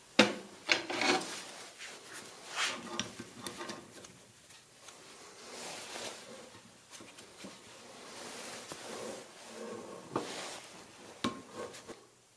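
A 3/8-18 NPT pipe tap being turned with an adjustable wrench in an iron pipe coupler held in a vise, opening up the threads so a nipple will screw in farther. Sharp metal clinks as the wrench goes on and off the tap, with scraping, rasping stretches as the tap cuts in between.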